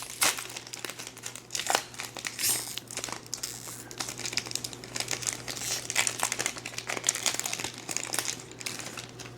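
Trading-card pack wrapper being crinkled and torn open, a continuous irregular crackle of handled wrapper.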